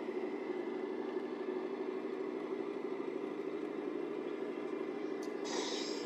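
A 1/14-scale RC semi truck running: a steady mechanical drone, with a short hiss about five and a half seconds in.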